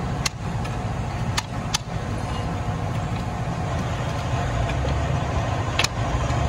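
About four sharp hammer strikes on a steel bar, chiselling packed sludge and old grease out of an excavator's travel gearbox: three in the first two seconds and one near the end. Under them runs a steady low engine drone.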